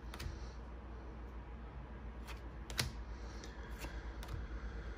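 Tarot cards being slid off a held hand and laid onto a pile: a handful of light card clicks and rustles, the sharpest a little before three seconds in, over a steady low hum.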